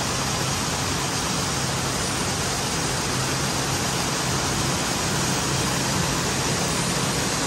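Steady, dense din of jute mill machinery running, with a low hum underneath.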